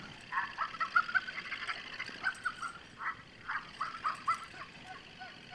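Battery-operated dog toy running with a steady high whine, over a string of short, irregular squeaky chirps.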